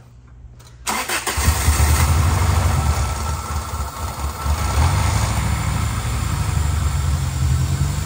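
Toyota 2ZZ-GE four-cylinder engine starting for the first time after being swapped into the car. There is a brief crank about a second in, it catches almost at once, and then it runs loudly and steadily.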